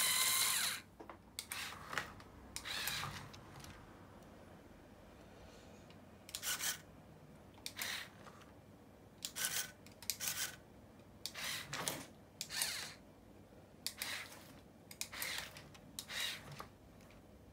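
The model car's small electric door motor whirs through its gears and stops about a second in. After that come a dozen or so short, separate rubbing scrapes, spaced irregularly, with quiet between them.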